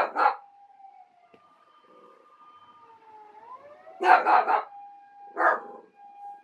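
A siren wailing in the distance, with a senior miniature dachshund barking at it in short loud bursts: a bark right at the start, three quick barks about four seconds in and one more about a second later.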